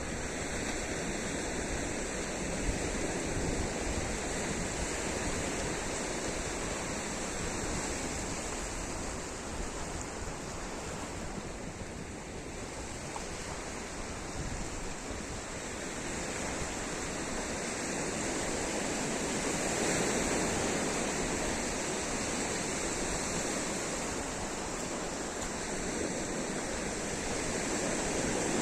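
Sea surf washing onto a sandy beach: a continuous rush of breaking waves that slowly swells and eases over several seconds.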